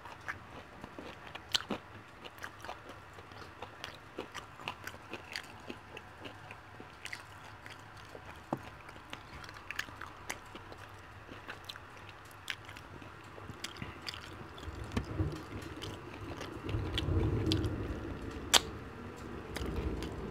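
Close-miked eating of fried chicken wings: biting, chewing and pulling meat off the bone, heard as many small wet clicks and crunches. A louder low rumble comes in over the last few seconds.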